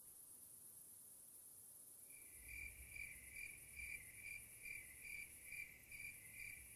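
Faint room tone, then from about two seconds in a cricket chirping steadily at about two chirps a second.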